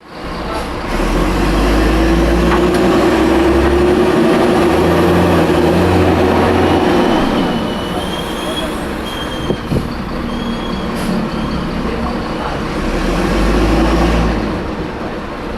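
Mercedes-Benz O500M bus diesel engine running and pulling hard, loud for the first several seconds and again near the end, with the raspy note of a holed exhaust. A thin, wavering squeal comes in around the middle from a slipping belt.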